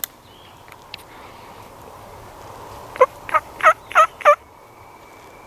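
Wild turkey gobbler gobbling once, a loud, rapid, rattling run of about five notes lasting just over a second, about three seconds in.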